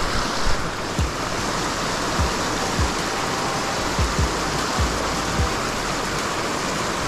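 Steady rush of water pouring out of a drainage pipe into a river. Under it, soft low thumps repeat evenly about every 0.6 s, a background music beat.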